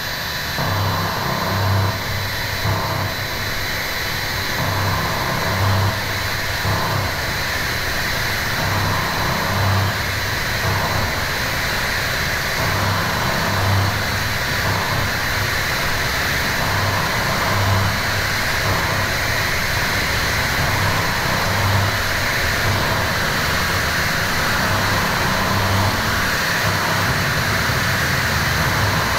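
Harsh electronic noise from a small Korg synth run through a Boss MT-2 Metal Zone distortion pedal, mixed with a cheap radio through a Boss octave pedal: a dense, steady distorted hiss and drone with thin high whistling tones and a low throbbing pulse every second or two.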